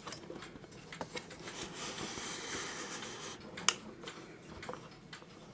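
Hands working on a clock movement: scattered small metallic clicks and a soft rustle as parts are handled and fitted, with one sharper click about two-thirds of the way through.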